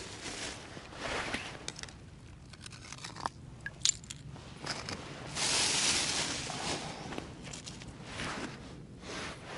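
Irregular scraping and crunching, with a few sharp clicks and a longer, louder rush of noise about five to six and a half seconds in.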